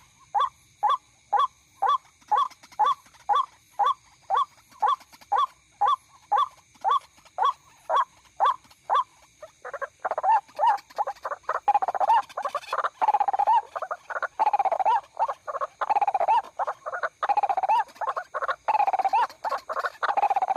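White-breasted waterhen calls: a short note repeated about twice a second, then from about ten seconds in a denser run of longer, overlapping calls.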